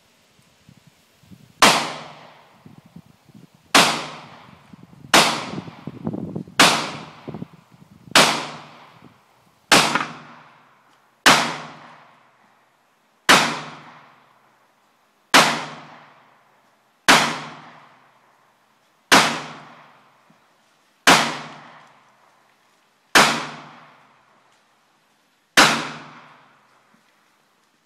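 A Glock 20 10mm Auto pistol fired fourteen times in slow, steady succession, a shot every one and a half to two and a half seconds. Each shot trails off in a short echo.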